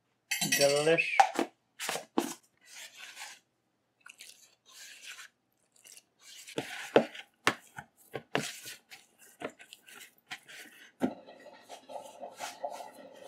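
Hands mixing flour and water for roti dough in a plastic bowl, then kneading the dough on a wooden board: scattered rubbing, scraping and light knocks. A steady low hum comes in about 11 seconds in.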